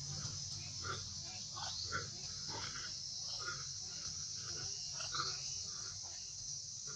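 Steady high-pitched drone of insects, with a scatter of short, soft animal calls throughout.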